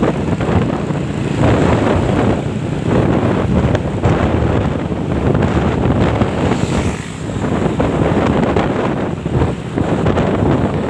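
Wind rushing and buffeting over the microphone of a phone carried on a moving motorcycle, in uneven gusts, with road and traffic noise underneath.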